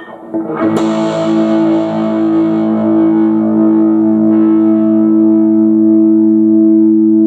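Aria STG series electric guitar played through an amplifier on its hum-cancelling humbucker pickup: a chord strummed just under a second in, then left to ring out steadily.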